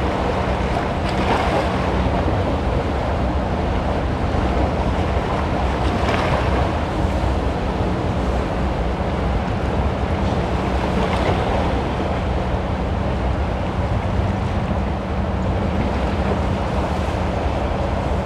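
Choppy inlet water washing and splashing against rock boulders at the waterline, swelling in three surges about one, six and eleven seconds in. Wind rumbles steadily on the microphone.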